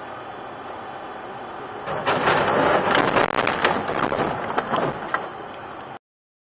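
Inside a moving car, a steady hum of road noise, then about two seconds in a barrage of thrown slush and debris pelts the windshield and body in many rapid hits for about three seconds. The sound cuts off suddenly near the end.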